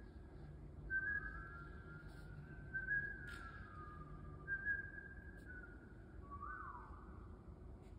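Whistling through hands cupped at the mouth: long held notes near one pitch, at times two tones sounding together, with a slow falling glide a little after three seconds and a quick swoop up and back down near the end.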